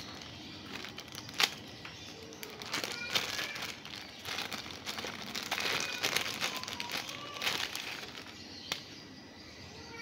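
Clear plastic bag crinkling and rustling as plastic ceiling-fan blades are handled and slid out of it, with irregular crackles and one sharp click a little over a second in.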